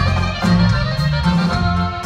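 Live band playing an instrumental passage of a Mexican regional song: a steady bass line, regular drum beats and a melody line, with no singing.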